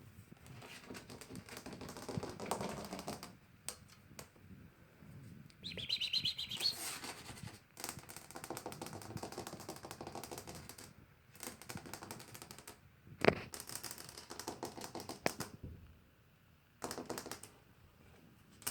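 Five-week-old kitten purring close up: a fast rattling purr in stretches of one to three seconds with short breaks for breath, and a brief high squeak about six seconds in. A single sharp knock comes about thirteen seconds in.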